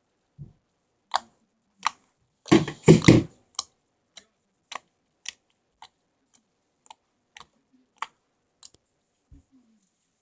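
Purple slime being squeezed and pressed by hand, making a string of sharp sticky clicks and pops about every half second, with a louder burst of crackling about three seconds in.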